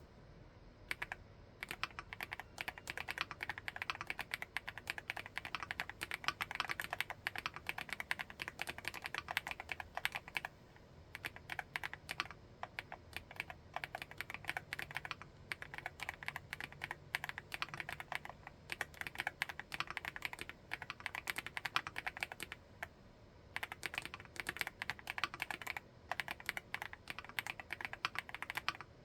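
Fast, continuous typing on an MCHOSE GX87 full-aluminium tenkeyless mechanical keyboard with TTC Flaming Orange switches. The keystrokes start about a second in and pause briefly about a third of the way through and again near the end.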